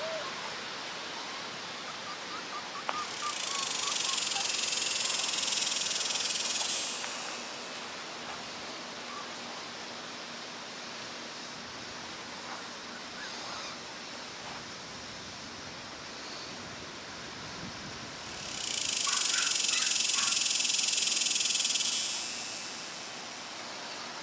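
A steady high-pitched hiss swells in twice, each time for about three seconds, over a quiet outdoor background.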